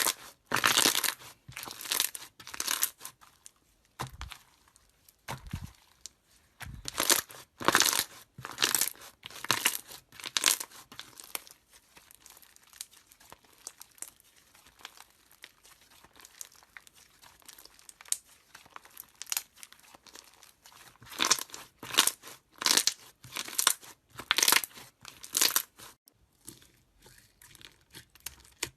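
Slime being squished and stretched, crackling and popping in irregular bursts with short pauses between, quieter for a stretch in the middle.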